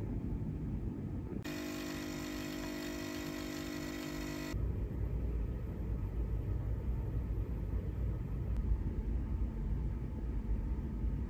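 Low, steady rumbling background noise. From about a second in until about halfway, a steady hum made of several tones sounds over it, starting and stopping abruptly.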